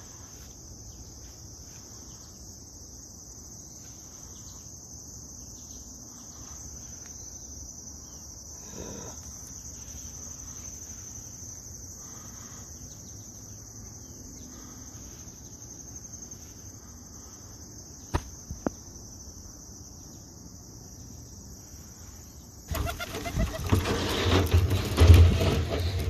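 A steady, high-pitched chorus of crickets. A loud burst of noise breaks in about three seconds before the end.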